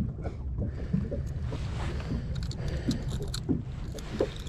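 Wind rumbling on the microphone, with light clicks and rustling from hands working treble hooks out of a largemouth bass's mouth, thickest in the middle and later part.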